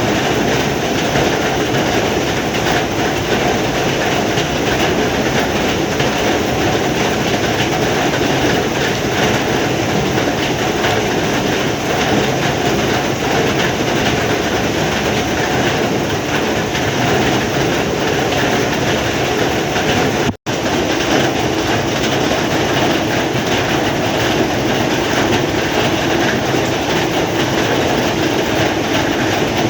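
Heavy rain falling steadily in a dense, even downpour. About 20 seconds in, the sound cuts out for a split second, then carries on unchanged.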